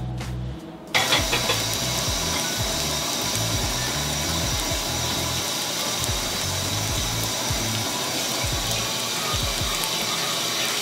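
Steamed bao buns frying in hot sesame oil in a pan: a steady sizzle that sets in suddenly about a second in, over background music.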